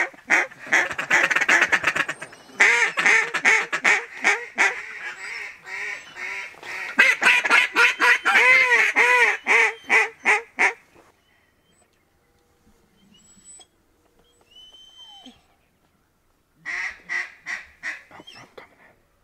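Duck call blown in a fast, loud run of quacks and chatter that stops about eleven seconds in, then starts again in a shorter burst near the end.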